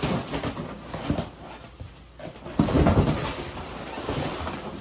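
A man grunting and straining with effort while heaving a heavy box upright, loudest about three seconds in.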